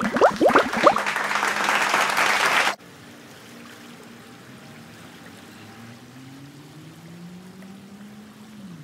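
Water splashing and rushing as a man jumps into a clear spring. It is a loud rush lasting about two and a half seconds that cuts off abruptly. Much quieter ambience follows, with a faint low hum that slowly rises in pitch.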